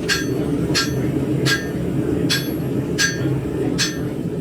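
Hammer striking hot steel on an anvil: six ringing blows about three-quarters of a second apart, over the steady roar of the forge.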